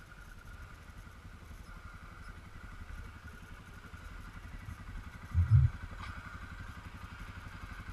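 ATV engine idling steadily, with a brief, loud, low double thump about five and a half seconds in.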